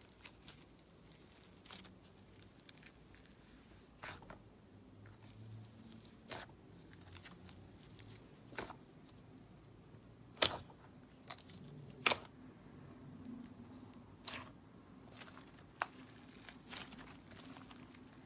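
Clay slime being squished, poked and stretched by fingers, giving faint crackles and, every couple of seconds, a sharp pop or click. The two loudest pops come about ten and twelve seconds in.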